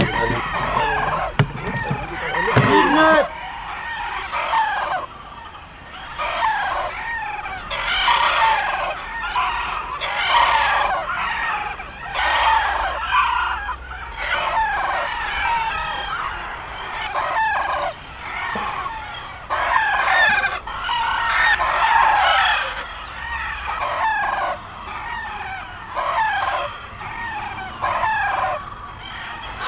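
Several bantam roosters crowing again and again, their crows overlapping one another with hardly a gap. Most give a three-part crow, and one gives a four-part crow.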